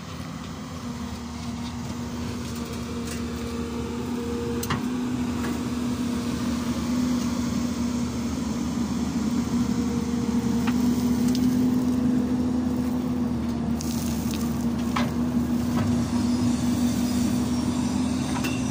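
Hyundai crawler excavator's diesel engine running with a steady hum, growing louder over the first ten seconds or so, with a few sharp clicks.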